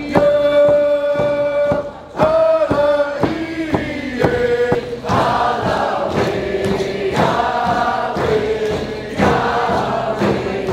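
A group of Haida singers chanting a song in unison, holding long notes, over a steady beat of painted frame hand drums struck about twice a second.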